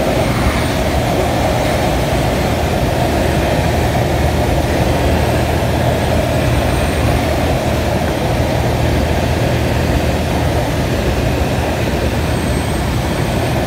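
Steady rush of air heard from inside a sailplane's cockpit, with the low steady drone of the propeller tow plane's engine pulling it through takeoff and the climb on tow.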